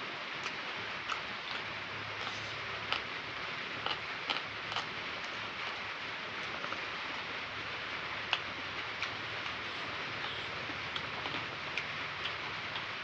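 Steady hiss with a dozen or so small, faint clicks scattered irregularly through it.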